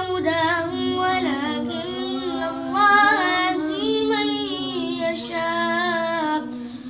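A boy's voice reciting the Quran in Arabic in a melodic chant, drawing out long notes with ornamented pitch turns, with a brief breath near the end.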